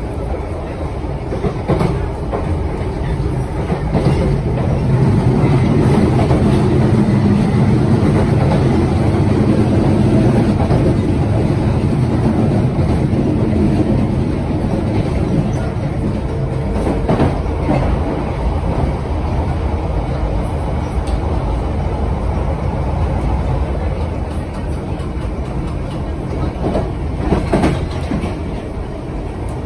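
London Underground 1972 Stock train heard from on board while running along the track: a steady rumble with a hum that grows louder about four seconds in and eases again after about fourteen seconds. A few clicks of the wheels come now and then.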